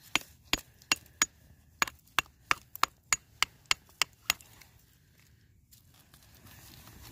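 Rock hammer chipping at a rock outcrop, about fourteen sharp knocks at roughly three a second that stop after about four seconds. It is breaking away rock to expose a massive sulfide pod.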